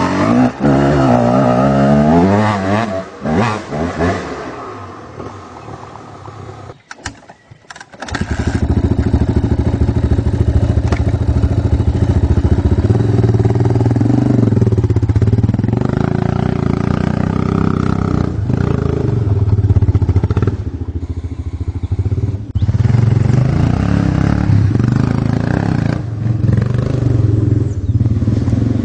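Dirt bike engines. First a Honda CR250R two-stroke motocross bike revs up and down as it climbs away, fading within a few seconds. After a short gap about eight seconds in, a Yamaha TT600, a big four-stroke single-cylinder enduro bike, runs loud and close, its revs rising and falling as it is ridden.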